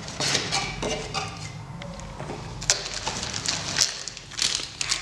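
Plastic packaging crinkling and rustling as wrapped camera accessories are handled, with sharp crackles scattered throughout.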